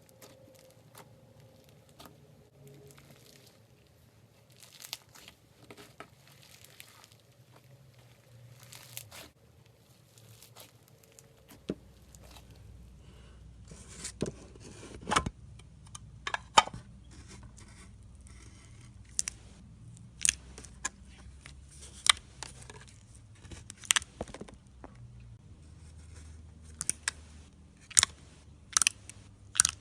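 Slime being squeezed and stretched by hand, crackling with small clicks. About a third of the way in the sound changes to louder sharp pops and snaps every second or two, as air pockets in the slime burst.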